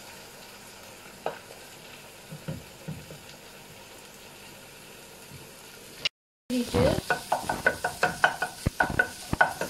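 Beaten eggs sizzling softly in a wok, with a few light clicks. After a brief cut to silence about six seconds in, a wooden spatula scrapes rapidly and repeatedly against the pan as the eggs are scrambled.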